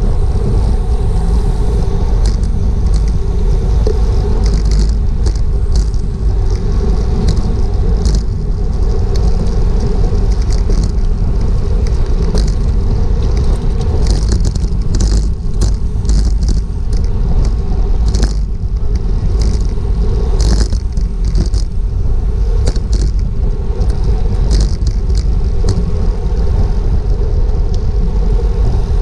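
Wind buffeting an action camera's microphone on a racing bicycle at speed, over a steady low rumble of tyres on the road. Short high-pitched clicks come and go, thickest around the middle.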